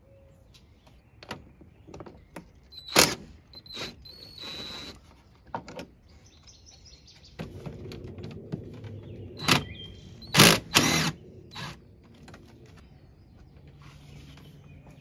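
Cordless 20V impact driver running in a few short bursts, the loudest about two-thirds of the way through, as it loosens a nut on the A/C accumulator's mounting post. Sharp clicks and clinks of tools come before it.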